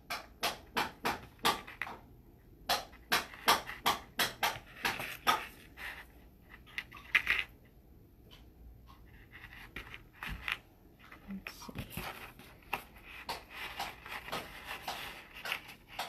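Dagger beads clicking against one another and on a hard tabletop as they are picked up and threaded onto a strand: irregular sharp clicks, with a lull near the middle.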